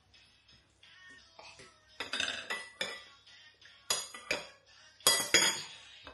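Metal spoon clinking against a dish during feeding: a run of sharp ringing strikes, the loudest groups about two, four and five seconds in, with music underneath.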